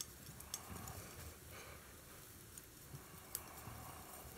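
Palette knife mixing paint on a palette: a few faint taps and soft scrapes as the paint is worked together.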